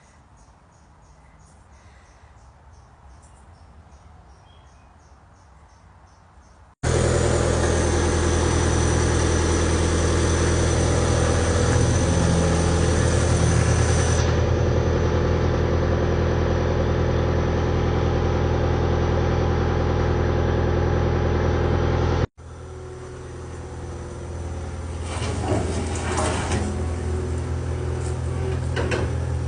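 Skid steer engine running steadily, loud and even for about fifteen seconds, then cutting off abruptly and coming back quieter, growing louder near the end. Faint bird chirps are heard before the engine comes in.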